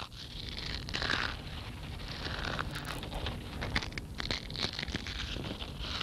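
Steady crackling and scratching noise: many small sharp clicks over a hiss.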